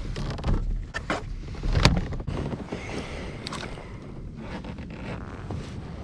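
Knocks, bumps and rustling of gear being handled on a kayak, several sharp knocks in the first two seconds with the loudest about two seconds in, over a low wind rumble on the microphone.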